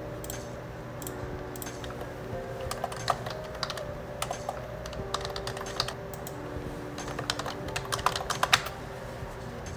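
Soft background music carrying a gentle melody, over light, scattered clicks and taps that come thicker and louder near the end.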